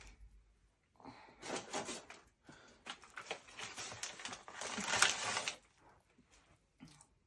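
Rustling and scattered light taps and clicks, starting about a second in and stopping suddenly near the end.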